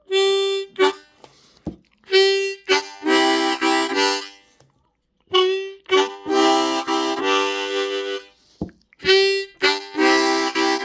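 Seydel Session Steel diatonic harmonica in C playing a tongue-blocked riff: short single notes alternating with full chords as the tongue lifts off the holes, in four short phrases with brief gaps between them.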